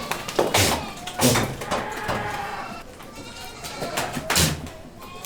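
Goats bleating: a few drawn-out calls, with several sharp noisy bursts among them.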